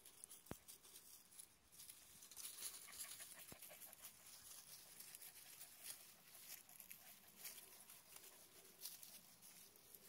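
Near silence: faint rustling with irregular soft patter, and two brief ticks, one about half a second in and one about three and a half seconds in.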